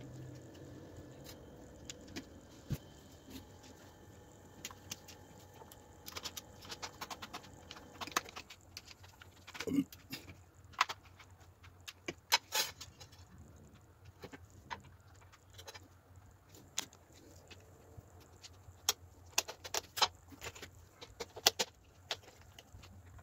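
Scattered sharp clicks and knocks of handling as a small woofer driver is fitted into the plastic housing of a cylindrical Bluetooth speaker, with a burst of louder clicks near the end.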